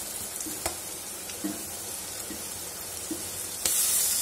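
Chopped carrots, peas and onion sizzling in oil in a nonstick kadai as a plastic spatula stirs them, with a sharp tap about half a second in and a few light knocks of the spatula. Near the end the sizzle suddenly gets louder.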